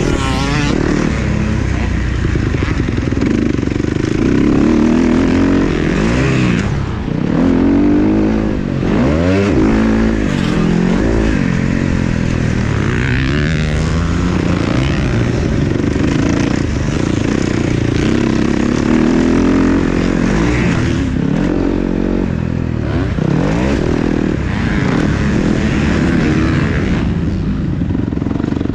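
Several motocross dirt bikes racing, their engines revving up and down over and over as they accelerate, shift and back off, with the pitches of different bikes overlapping.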